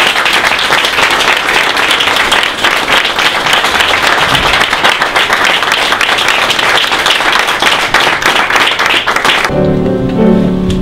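Audience applauding, a dense steady clatter of many hands. About nine and a half seconds in the applause cuts off and background music begins.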